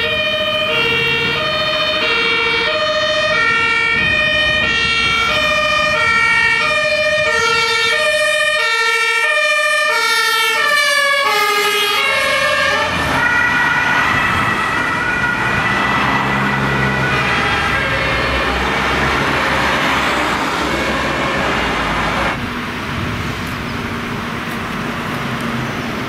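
German two-tone emergency siren (Martinshorn) on a fire brigade rescue ambulance, switching evenly back and forth between two pitches; about eleven seconds in both notes drop in pitch as the vehicle passes close by. After that, road noise of the passing vehicles takes over.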